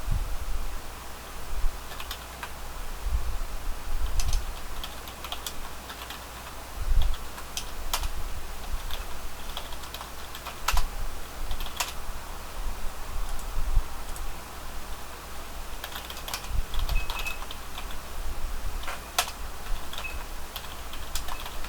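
Typing on a computer keyboard in irregular bursts of key clicks, with heavier thumps of keys being struck now and then.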